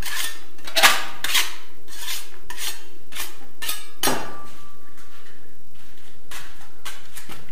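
Steel putty knives scraped against each other over a bucket, short metal-on-metal scraping strokes about two a second, cleaning plaster off the blades. The strokes pause for a couple of seconds midway, then a few more come near the end.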